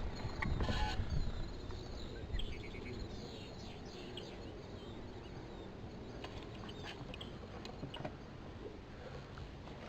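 Small birds chirping and calling, many short high chirps scattered over a low steady background hiss; louder rustling with a few knocks in the first second or so.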